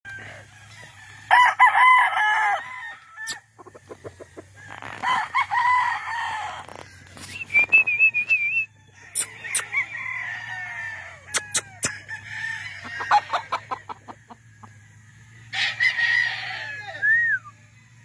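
Gamecock roosters crowing in turn, four crows of one to two seconds each, the first the loudest. Scattered sharp clicks come between the crows.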